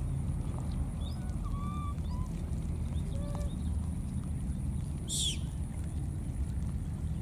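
Baby monkeys giving several short, faint chirping calls, then one brief, loud high squeal falling in pitch about five seconds in, over a steady low rumble.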